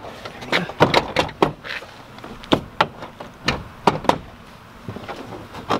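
Plastic snap clips of a 2019 Ford Transit's front door trim panel popping loose as the panel is pulled off the door: a quick, irregular run of sharp clicks and knocks, several in the first two seconds, a few more around three to four seconds in, and one near the end.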